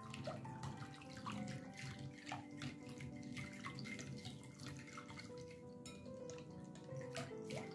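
Plastic whisk stirring a thin milky liquid in a glass bowl: quick sloshing and splashing with light ticks against the glass, over soft background music.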